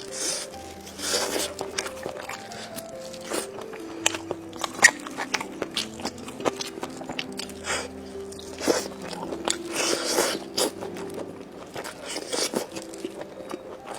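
Crunching and chewing of crisp fried skewered food, with several louder crunchy bites and many small crackles, over background music with a melody and bass line.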